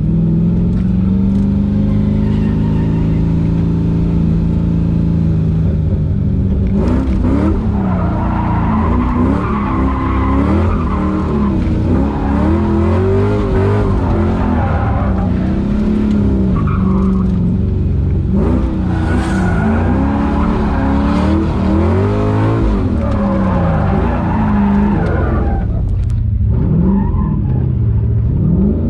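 LS-swapped V8 engine of a Mazda Miata NB heard from inside the cabin: steady for the first few seconds, then revving up and down over and over from about seven seconds in. Tyre squeal comes in with the revving as the car drifts.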